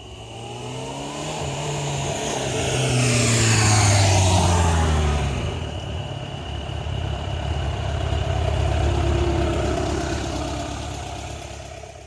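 2004 Suzuki Bandit 600 with its carburetted inline-four and stock exhaust riding past. Its engine note swells to its loudest about four seconds in, then drops in pitch as it goes by. A second swell follows around nine seconds, and the sound fades near the end.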